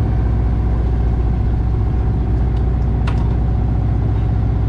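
An engine running steadily on the fishing boat: a deep, even drone with a fast regular pulse. A single sharp click comes about three seconds in.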